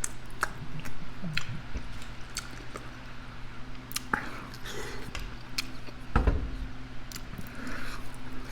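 A person chewing food close to the microphone, with irregular wet smacks and clicks of the mouth. A louder low thump about six seconds in, and a faint steady hum underneath.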